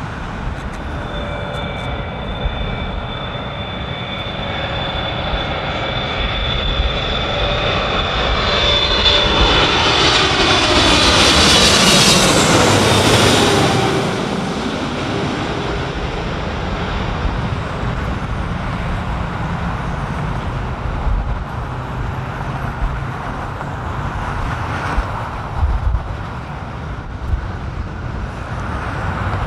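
Jet airliner passing low overhead: engine whine and roar build to a peak about twelve seconds in, the whine tones dropping in pitch as it goes by, then fading into a lingering rumble.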